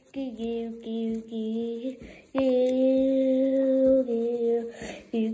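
A lone voice singing with no accompaniment: a run of short notes, then one long held note from about two seconds in, then short notes again.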